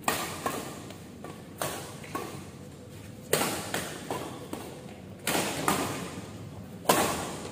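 Badminton rackets striking a shuttlecock in a doubles rally: five sharp hits about every one and a half to two seconds, with lighter clicks between them, each ringing briefly in a large hall.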